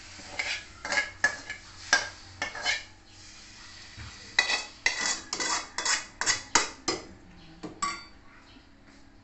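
Metal utensil scraping and clinking against a metal pan as sautéed food is scraped out into a steel cooking pot. The strokes come in two runs, a slower one at the start and a quicker, louder run of about a dozen strokes in the middle.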